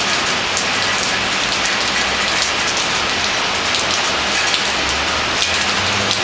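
Heavy rain lashing down: a steady, loud hiss of downpour, with scattered sharp ticks of drops striking close by.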